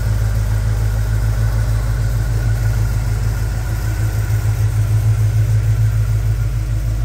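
1986 Ford F-150 pickup's engine idling steadily with the hood open, a low even pulse that grows slightly louder for a couple of seconds past the middle.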